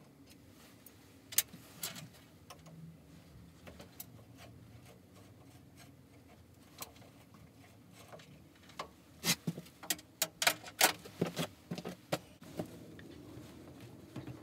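Sharp metallic clicks and knocks of a T-handle hex key and lathe saddle parts being worked loose, scattered at first and then a quick run of louder clinks a few seconds from the end.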